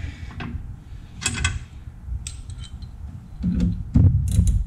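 Hand tool tightening the nut on a mower's battery terminal: a few short metallic clicks and rattles, with louder knocks near the end.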